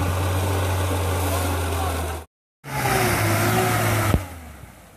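Lada Niva's engine running steadily under load as the car wades through deep creek water washing over its bonnet. After a brief gap of silence just after two seconds, the engine revs, rising and falling as the car pushes on through the water, then fades near the end.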